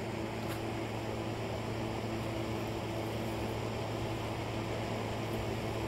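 Steady mechanical hum with a low drone and a hiss, unchanging throughout, with no distinct knocks or other events.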